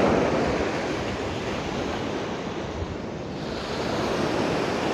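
Sea surf washing onto the beach, with wind buffeting the microphone. The noise eases around the middle and builds again.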